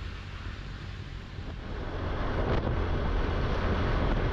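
Wind rushing over the microphone with a low rumble, growing louder about two seconds in as the motor scooter gets under way.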